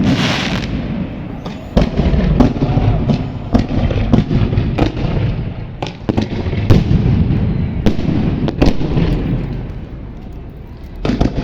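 Fireworks going off in quick succession: loud, irregularly spaced bangs over a continuous crackle, easing a little near the end.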